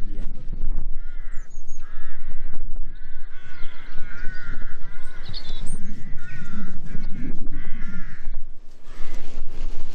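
Birds giving a long run of harsh, cawing calls, several close together each second, stopping shortly before the end.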